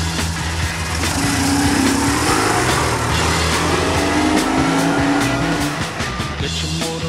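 BMW boxer-twin motorcycle engine revving as the bike pulls away and accelerates, with two rises in pitch, over rock music.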